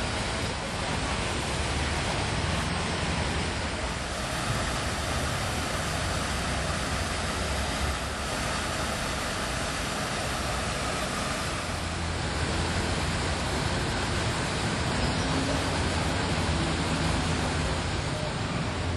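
Steady rushing of a small cascade of water falling into a pond, with a low rumble underneath.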